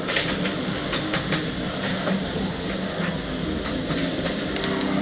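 Rock music with a drum kit and guitar.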